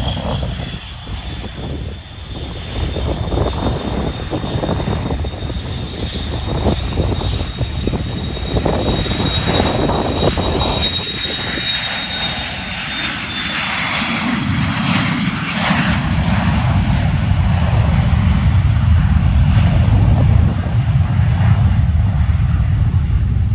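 Aircraft engines of a passing airplane: a high whine climbs slightly and holds, then fades about two-thirds of the way through as a deep rumble grows louder.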